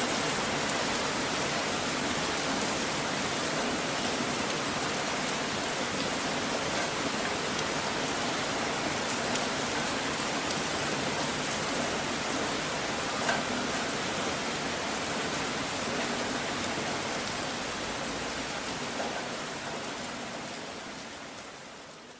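Steady rain, an even hiss with occasional faint drop ticks, fading out over the last few seconds.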